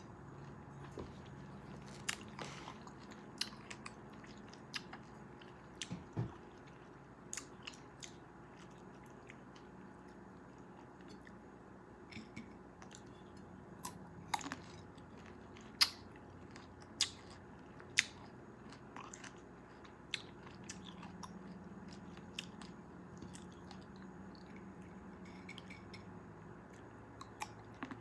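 Close-miked chewing of cherries: irregular sharp mouth clicks and smacks over a faint steady background, the loudest few coming a little past the middle.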